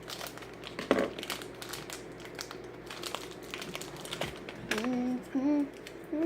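Crinkly plastic fruit-snack wrapper being handled and opened, with a run of small crackles. Near the end a person hums a few short notes.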